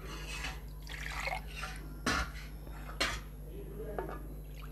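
Faint kitchen handling of a bowl of batter: soft liquid swishing for the first couple of seconds, then two sharp clicks about a second apart and a small tick near the end.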